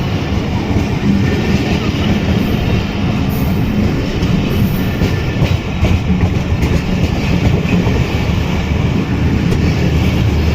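Train running past on the track: a loud, steady rumble of wheels and coaches on the rails.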